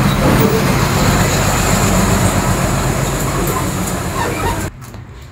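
A motor vehicle engine running with a steady low hum and noise, cutting off suddenly near the end.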